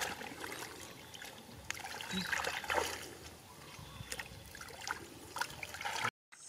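Hands sloshing and groping through shallow muddy water, with small splashes and trickles. The sound cuts out briefly near the end.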